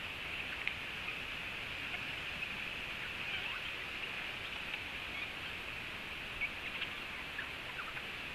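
Short, scattered bird calls and chirps over a steady high-pitched hiss.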